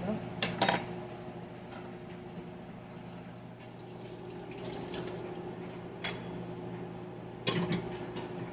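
Kitchen faucet running into the sink as it fills with dishwater, a steady rush of water, with a few short knocks.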